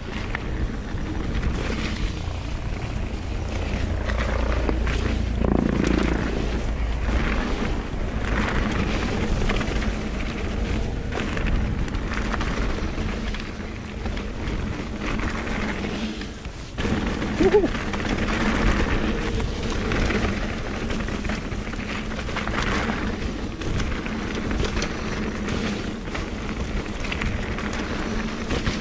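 Mountain bike riding fast down a dirt trail: wind buffeting the camera microphone as a steady low rumble, with tyre noise and frequent knocks and rattles from the bike over rough ground.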